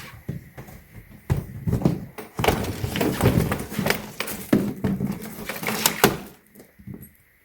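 Hardshell suitcase being handled: knocks and rubbing on the plastic shell as its back strap is worked, ending in a sharp knock about six seconds in.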